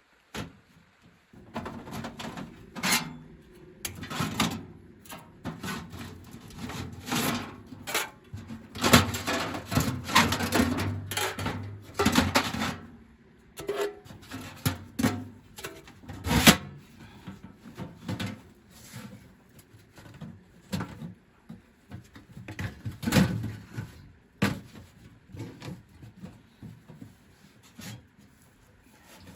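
Irregular knocking, scraping and rubbing of objects being handled, with a few sharp knocks and a busy stretch of scraping in the middle.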